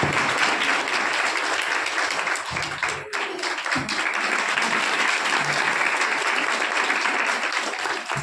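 Audience applauding steadily, many hands clapping at once, with a brief lull about three seconds in.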